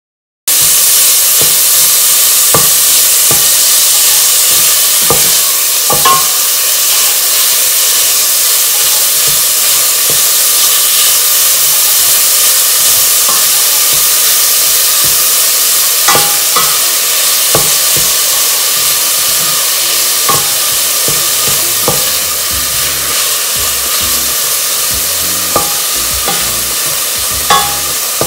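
Ground beef with onions and garlic sizzling loudly as it browns in a stainless steel pot, starting suddenly about half a second in. A wooden spoon stirs it, with scattered sharp clicks against the pot.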